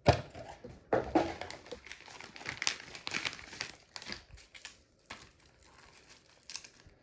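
Packaging crinkling and rustling as it is handled, in irregular bursts for about five seconds, then a brief rustle near the end.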